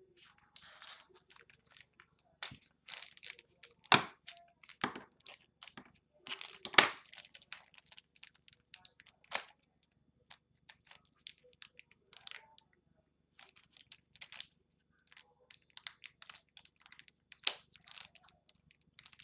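Plastic packaging of a sticker pack being handled and pulled at to get the stickers out: irregular crinkling and crackling with a few sharper snaps, the loudest about 4 and 7 seconds in.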